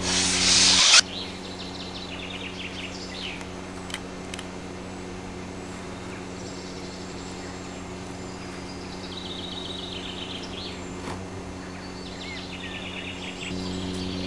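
Birds chirping on and off over a steady low hum. A loud hissing burst cuts off abruptly about a second in.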